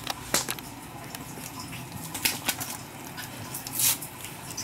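Seasoning being shaken out over raw ground beef in a bowl: a few sharp clicks from the container, then a short rustling shake near the end.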